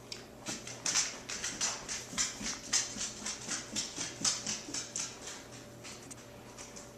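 A dog panting quickly, about three to four short breaths a second, fading out after about five seconds.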